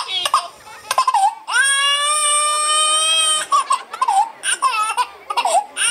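A clown's loud, exaggerated mock crying in the style of a bawling child: a long held wail starting about a second and a half in, followed by shorter sobbing wails.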